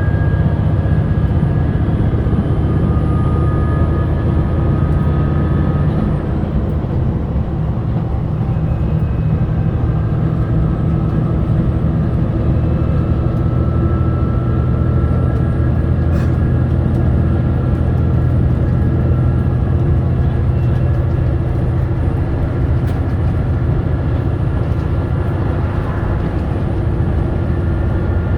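JR Shikoku 2000 series diesel railcar running at speed, heard inside the cabin: a steady rumble of the diesel engine and wheels on rail, with thin whining tones that shift in pitch about six seconds in.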